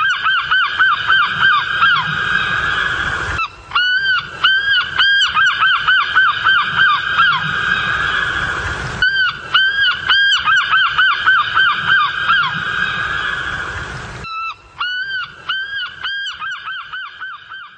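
A flock of birds giving rapid, overlapping goose-like honks, breaking off briefly three times and fading out near the end.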